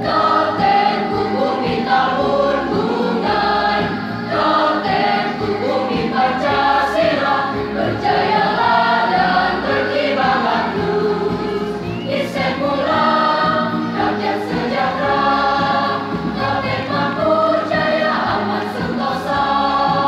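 A mixed high-school choir singing an Indonesian march, many voices together in full song.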